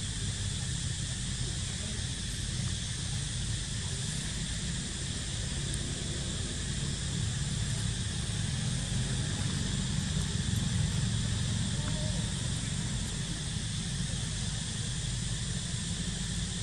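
Steady outdoor ambience: a constant high insect drone with a low rumble beneath, unbroken and even throughout.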